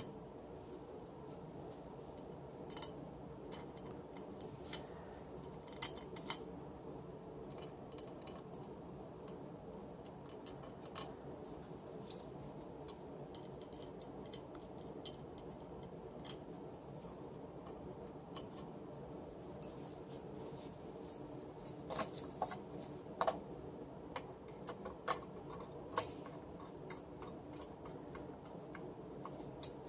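Scattered light clicks and taps of small hard keyboard parts being handled during assembly of a keyboard into an aluminium housing, with a quick cluster of clicks about two-thirds of the way through, over a steady low hum.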